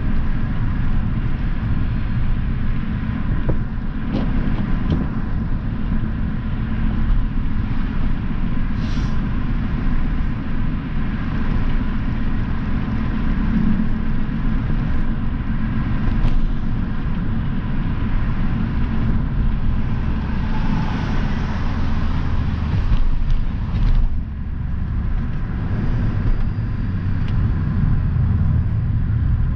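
MINI Cooper driving on the road, heard from inside the cabin: a steady low rumble of engine and tyres.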